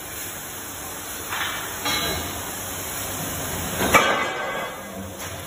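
Heavy steel rail sections clanking against each other and the steel machine bed as they are shoved under a press. Two sharp clanks about a second and a half in, then a louder ringing clang about four seconds in, over a steady workshop din.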